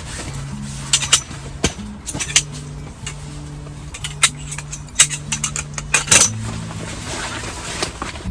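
Camping gear being handled and packed away: scattered light clinks and knocks of metal and hard items, the sharpest about five and six seconds in, over soft background music.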